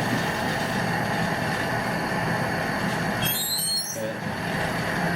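Glassworking torch running with a steady rushing roar. About three and a half seconds in, the roar dips for half a second and a few high, wavering squeaks sound.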